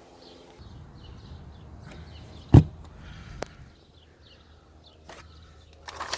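Knocks and clicks of work on a car battery being disconnected: a low rumble of handling, then one loud knock about two and a half seconds in, a sharper click under a second later, a few faint clicks, and rustling near the end.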